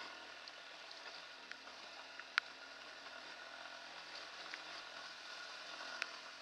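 Hartford VR150's 150cc single-cylinder air-cooled engine running steadily at low speed on a rough dirt track, heard faintly. Two sharp knocks break through, one about two seconds in (the loudest sound) and one near the end, with a few lighter ticks between.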